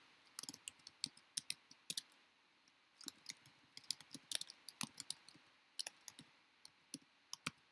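Typing on a computer keyboard: an uneven run of quick key clicks, pausing briefly a little over two seconds in.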